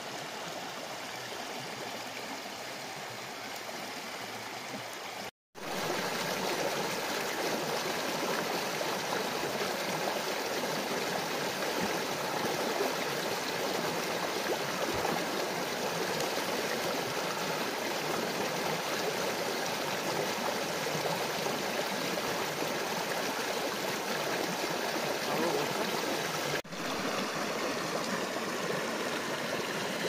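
Fast-flowing forest stream rushing and splashing over rocks and small cascades, a steady rush of water. It cuts out for a moment about five seconds in and comes back louder, with another brief break near the end.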